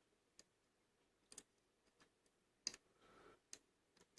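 Faint, irregular light clicks from a lock pick and tensioner working the pins of a DOM dimple lock: about half a dozen sharp ticks over a few seconds, some in quick pairs.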